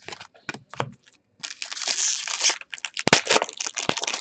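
Wrapper of a 2016-17 Upper Deck Series 2 hockey card pack being torn open and crinkled. A few light clicks come first, then a long tear about a second and a half in, then crackling of the wrapper.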